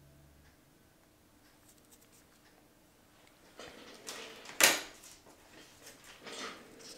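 Quiet at first, then, from about halfway through, a run of rustling and scraping handling noises in a small room, the loudest a sharp knock about two-thirds of the way in.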